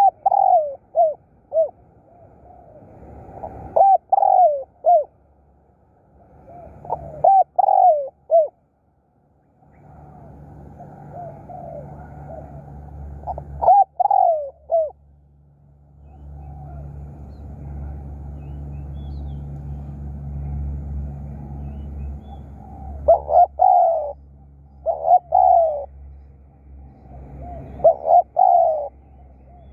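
Spotted dove cooing: short phrases of three or four coos, about seven phrases with pauses of a few seconds between them, coming closer together near the end.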